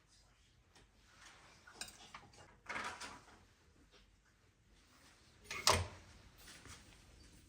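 Small handling noises: a brief rustle about three seconds in, then a single sharp knock near six seconds.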